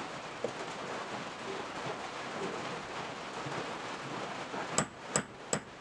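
A steady hiss, then near the end three sharp hammer taps on metal, about three a second, each with a short metallic ring. They come from striking the bicycle chain at the Sharpie-marked link to break it to length.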